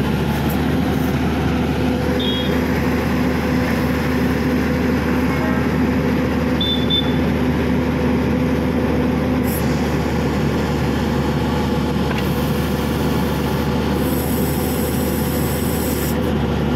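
Horizontal directional drilling rig's engine and hydraulics running steadily and loudly. A steady hum in the machine noise drops out about halfway through.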